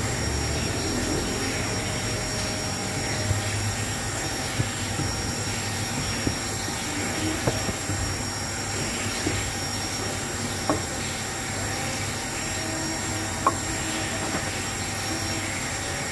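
Mashed potato and flour dough being stirred in a bowl, with a few light knocks of the utensil against the bowl, over a steady whirring hum.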